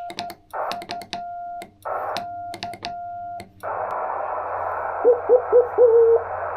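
Morse code on a ham radio: a steady keyed tone with clicks on the keying for the first few seconds, then receiver hiss. Over the hiss come the chirpy CW signals of a homebrew single-valve transmitter, each dot and dash bending in pitch as it starts.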